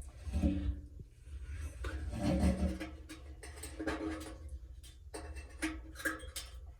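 Handling noise from small parts of a steering-wheel cruise-control switch: scattered light clicks and rubbing as the tiny contacts and springs are handled.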